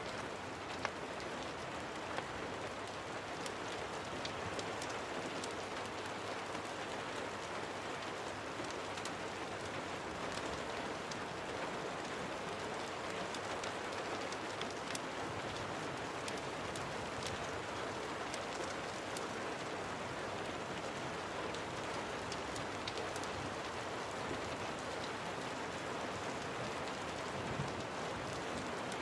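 Steady rain falling, an even hiss with many scattered sharp ticks, and a couple of louder pops about one and two seconds in.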